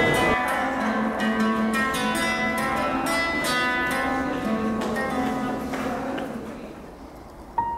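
Acoustic guitar playing a run of plucked notes that fades out near the end, with a new held note starting just before it ends.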